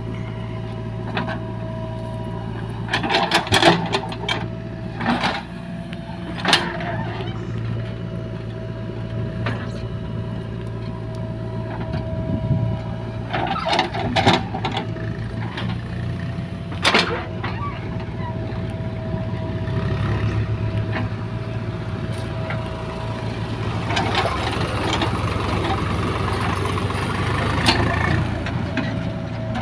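JCB 3DX backhoe loader's diesel engine running steadily while it digs and loads soil, with a tractor's diesel engine running alongside. Bursts of clanks and thuds from the bucket digging and dumping soil into a steel tractor trailer come a few seconds in and again around the middle. Near the end the engine works harder, with a whine.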